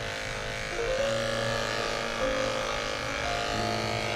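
Electric dog-grooming clippers with a No. 10 blade running steadily as they shave through a dense mat of fur down to the skin. The motor hum shifts slightly in pitch about a second in and again near the end.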